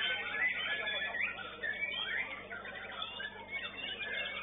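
White-rumped shama (murai batu) singing a fast, varied run of whistles, trills and notes that sweep up and down in pitch, with no break.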